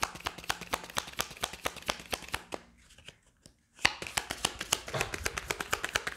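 A deck of oracle cards shuffled by hand: a quick run of card flicks that stops for about a second midway, then starts again.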